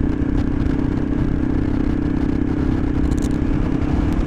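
Motorcycle engine running at a steady cruise, one held note, under heavy wind rumble on the microphone.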